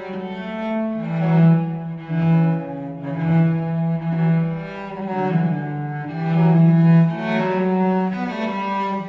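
Solo cello music: bowed cello playing a slow line of long held notes in its low register, changing pitch about once a second.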